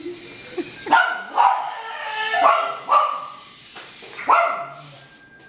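A dog barking repeatedly, about five short barks spread over a few seconds.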